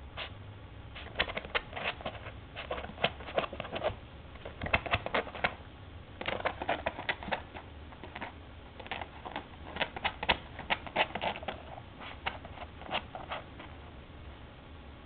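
Miniature dachshund puppy's claws scratching rapidly at the base of a couch and the carpet, in quick flurries of scratches with short pauses between them, dying down near the end.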